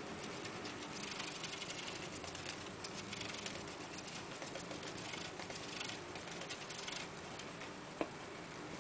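Gerbil scrabbling and shredding in a torn cardboard box of shredded-paper bedding: rapid, crackly scratching in stretches from about a second in until near the end, then a single sharp click.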